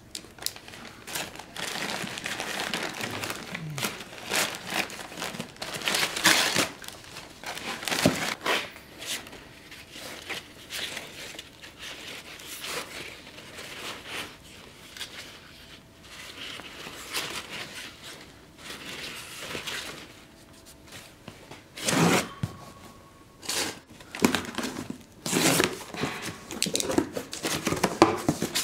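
Brown paper wrapping and packing tape crinkling and tearing as a cardboard parcel is unwrapped and opened, with a stack of abrasive sanding belts being handled partway through. Irregular rustles and sharp rips throughout.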